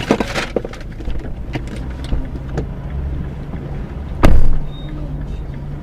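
Stationary car's engine idling with a steady low hum, and one loud, short thump about four seconds in.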